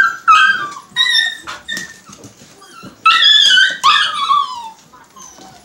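Siberian huskies yelping and whining in high-pitched calls that mostly fall in pitch. There is a cluster right at the start, another about a second in, and the loudest pair about three to four seconds in.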